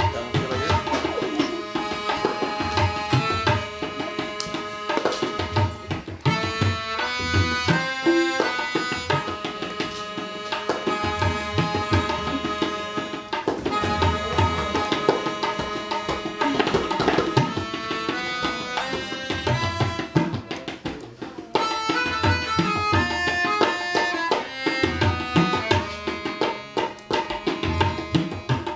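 Tabla drumming, with repeated deep bass strokes from the larger drum, under a melodica playing a melody of held notes that step from pitch to pitch.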